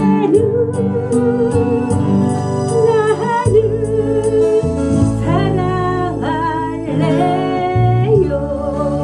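A woman singing a Korean ballad in phrases, accompanying herself on a strummed acoustic guitar.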